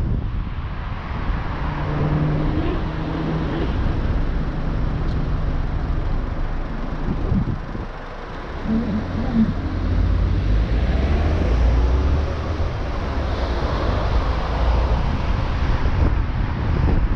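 A vehicle driving along a city road: continuous tyre, engine and wind noise. The level dips briefly about eight seconds in, then a louder low rumble follows.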